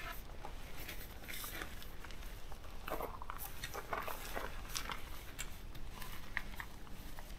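Tent fabric of a Durston X-Mid 1 rustling and crinkling in scattered bursts as it is shaken out and pulled up by hand, with a few sharper crinkles and crunches of gravel underfoot partway through.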